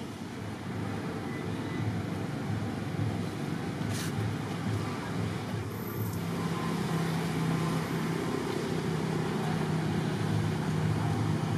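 A motor vehicle engine running steadily: a low hum that grows a little louder in the second half, with one sharp click about four seconds in.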